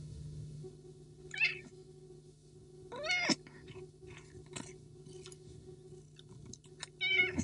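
Domestic cat yowling at another cat during an aggressive standoff. There are three short calls: one about a second and a half in, a rising-and-falling one at about three seconds, and a wavering one near the end.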